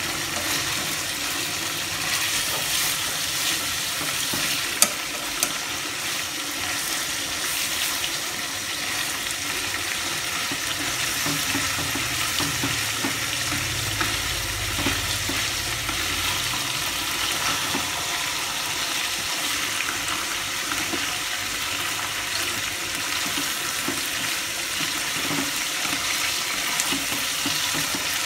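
Marinated chicken drumsticks sizzling in hot oil in a steel wok, being turned with chopsticks; a steady frying hiss, with two sharp clicks about five seconds in.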